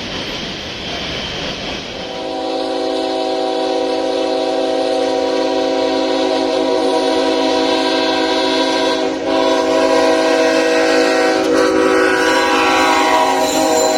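Diesel freight locomotive's multi-chime air horn sounding a long, steady chord, starting about two seconds in and held with a short break near the middle, over the running noise of the train.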